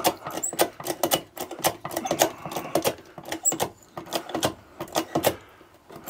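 Hand-operated hydraulic test pump being worked by its lever, clicking about four times a second as it forces water into a boiler and raises the test pressure.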